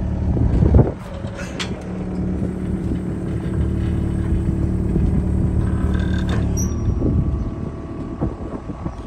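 Skid loader engine running steadily, easing off near the end.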